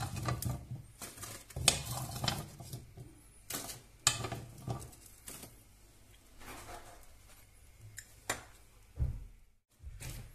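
Metal spoon scraping and clinking against a frying pan while roasted chestnuts are scooped out, with irregular knocks and clatter as the chestnuts are dropped into a paper cone.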